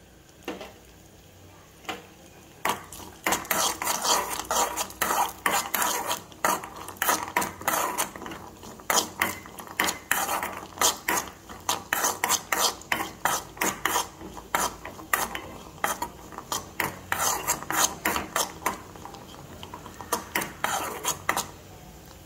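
A metal spoon stirring cashews and raisins frying in ghee in a metal pan: repeated scrapes and clinks of the spoon against the pan, two or three a second, starting about two and a half seconds in.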